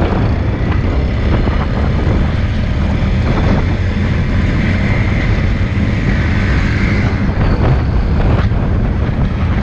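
Motorcycle engine running steadily, with wind noise on the microphone.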